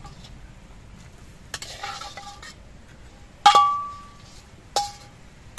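Metal spatula scraping against a metal bowl, then two sharp metallic clanks with a ringing tone, about three and a half seconds in and again near the end, as fried fish pieces are knocked out of the bowl into a pan of curry. The first clank is the loudest.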